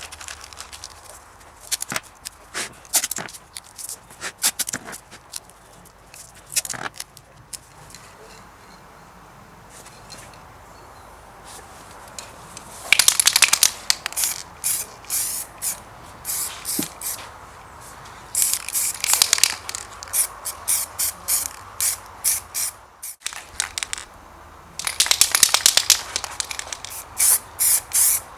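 Aerosol spray paint hissing in many short bursts, in clusters separated by pauses.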